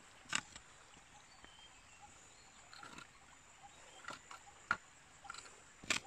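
A few sharp, isolated taps and clicks, one shortly after the start and two more near the end, over a faint steady outdoor background with a thin, high, steady whine.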